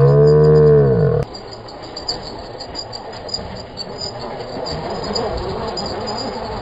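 A loud low droning hum that sags in pitch and cuts off about a second in, followed by quieter outdoor ambience: a steady high chirring of insects with a few light knocks.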